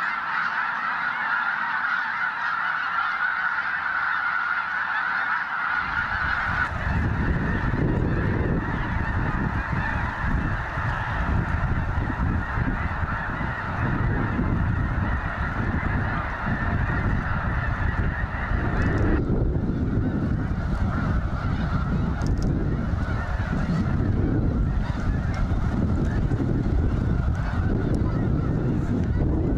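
A huge flock of snow geese calling all at once: a dense, unbroken chorus of high honks, almost deafening. About six seconds in, a low, uneven rumble joins beneath the calls and carries on.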